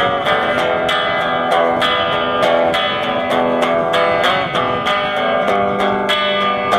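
Guitar strummed in a steady rhythm, playing the chords of the instrumental break between sung verses of a bard song.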